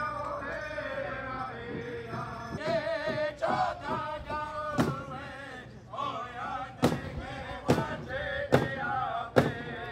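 Native American drum group chanting: several men singing a high, wavering song together, with steady strikes on a large drum at about one a second in the second half.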